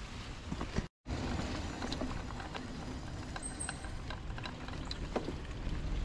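Trek mountain bike riding along a dirt trail: steady rolling and riding noise with scattered small clicks and rattles from the bike over bumps. The sound cuts out for a moment about a second in.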